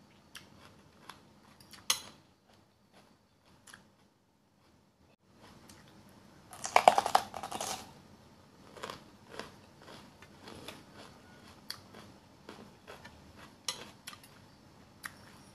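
Bite into a raw green bell pepper: a short burst of loud, crisp crunching about seven seconds in, the loudest sound, with scattered lighter crunchy clicks of chewing before and after.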